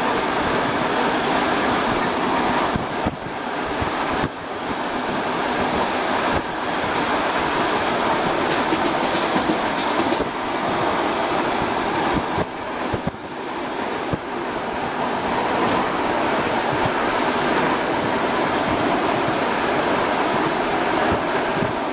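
ER2R electric multiple unit running at speed, heard from inside the carriage: a steady rolling noise of the wheels on the rails, with a few sharp clicks and brief dips in loudness.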